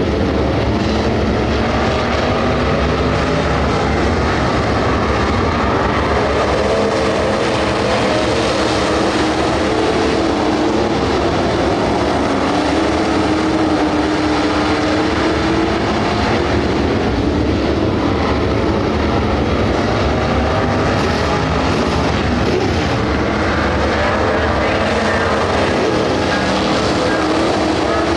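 A pack of dirt-track race cars running at speed around the oval, their engines rising and falling in pitch as they come around and pass.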